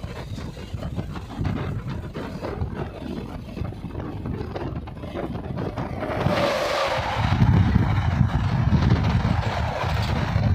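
Wind and wheel rumble from the open door of a moving passenger train. About six seconds in, a WAG-9HC electric freight locomotive passes close on the next track with a sudden rush of air and a brief falling tone, followed by the louder rumble of empty container flat wagons rolling by.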